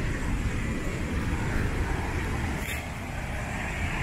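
Waterfall's steady rushing roar, a broad even noise with a heavy low rumble.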